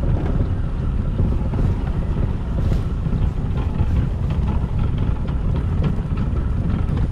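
Motorboat under way: a steady low rumble of motor and wind buffeting the microphone.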